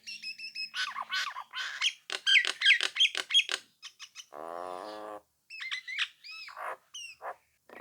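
Jalak nias myna singing a varied chattering song of quick whistles, clicks and sweeping rising and falling notes, with one drawn-out nasal, buzzy call near the middle.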